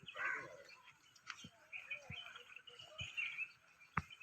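Small birds chirping on and off, with a few sharp clicks scattered through, the loudest near the end.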